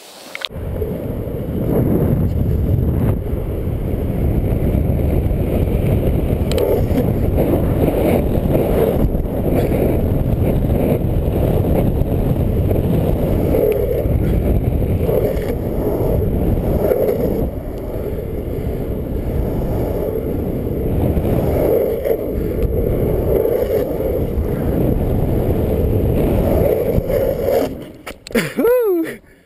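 Longboard wheels rolling fast on asphalt, with wind rushing over the microphone as a loud, fluctuating rumble during a freeride descent. Near the end a short falling tone sounds, then everything cuts off.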